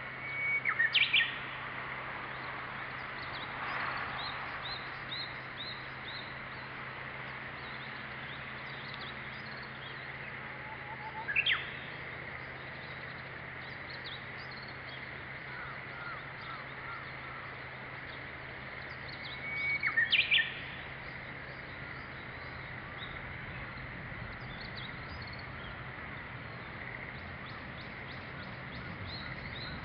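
Japanese bush warbler (uguisu) singing its hoo-hokekyo song three times: near the start, about 11 seconds in, and about 20 seconds in, each a held whistle breaking into a quick rising flourish. Faint high chirps of small birds come in between, over a low steady hum.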